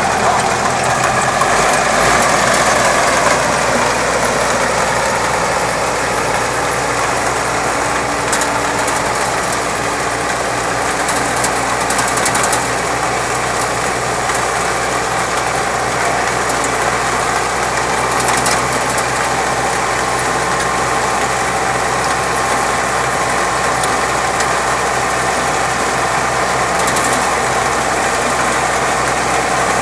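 4U-180 potato harvester and the tractor driving it, running steadily. Brief bursts of rattling come now and then over the drone of the engine.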